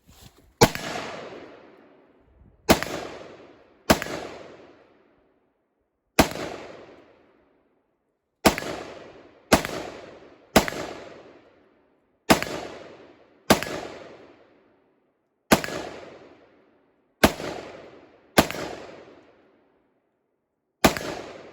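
Thirteen gunshots fired one at a time, spaced unevenly about one to two seconds apart, each followed by a short echo that dies away.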